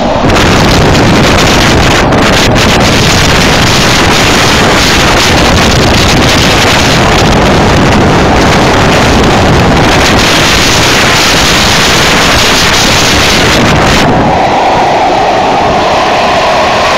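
Loud rushing wind buffeting the microphone at a moving train's window, drowning out the train's running noise. It starts suddenly and cuts off about fourteen seconds in, when the steadier rumble of the train comes back.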